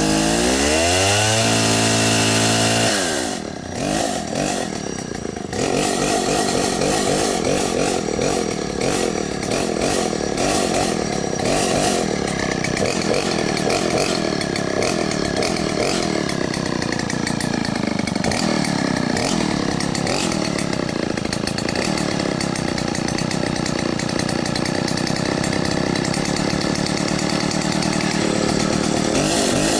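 Two-stroke petrol chainsaw revving up, easing off for a couple of seconds, then running hard at high speed from about five seconds in, its pitch sagging and recovering now and then. It revs up again at the very end.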